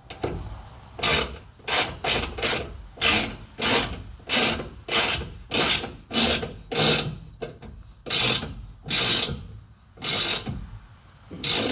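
Hand ratchet worked back and forth in short rasping strokes, about two a second, most likely tightening a freshly Teflon-taped fitting into an air tank.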